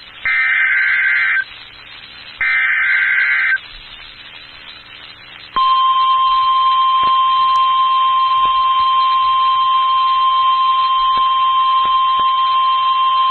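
Emergency Alert System SAME data header: two harsh warbling digital bursts of about a second each, with a second's gap between them. About five and a half seconds in, the NOAA Weather Radio single-tone 1050 Hz warning alarm comes on as one loud, steady, high beep and holds. Together they signal the start of a tornado watch alert.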